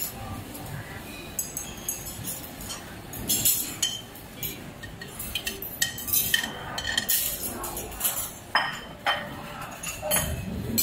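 A metal spoon and a plate clinking and scraping against a frying pan while a cream sauce is stirred and bacon is tipped in: a string of sharp, irregular clinks.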